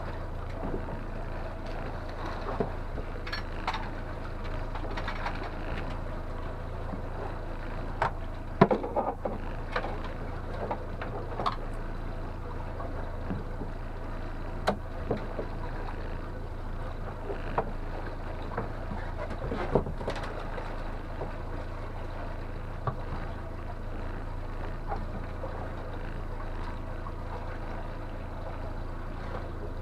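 Boat's outboard motor running steadily, with scattered sharp knocks and clatters on board; the loudest comes about nine seconds in.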